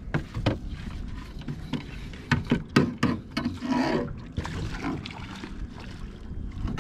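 Small boat on a lake: water against the hull and wind on the microphone as a steady low rumble, with a string of sharp knocks and clicks, the loudest about two to three seconds in.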